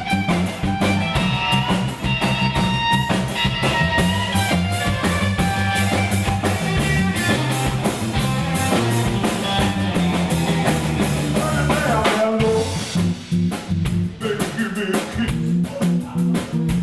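Blues band playing an instrumental break: a lead guitar solos in held, bent single notes over bass and drum kit. For the last few seconds the bass drops back and the band plays separate hits.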